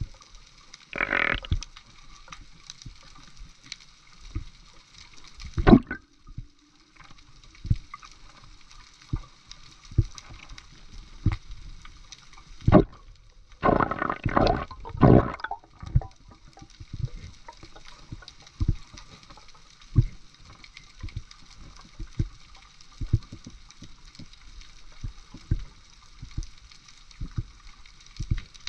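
Water sounds around the microphone: a steady hiss with irregular soft knocks, and a few louder gurgling bursts about a second in, near the middle and in a cluster a little past halfway.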